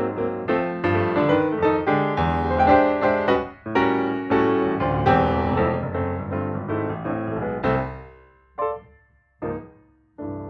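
Background piano music, a lively run of notes that fades out about eight seconds in, followed by a few single struck notes.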